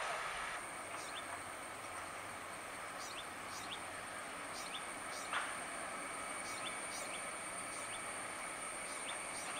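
Rural ambience of a steady high insect drone with short bird chirps repeating, often in threes, over the faint sound of a distant diesel-hauled goods train of tank wagons approaching. A single sharper sound stands out about five seconds in.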